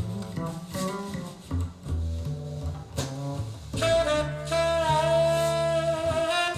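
Jazz played back through Piega Premium Wireless Gen 2 501 loudspeakers: a saxophone line over double bass. About four seconds in, the saxophone holds one long note.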